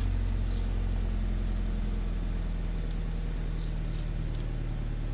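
Toyota GT86's 2.0-litre flat-four boxer engine idling after a cold start, the idle easing slightly lower about two seconds in. A light, intermittent rattle is heard over the idle.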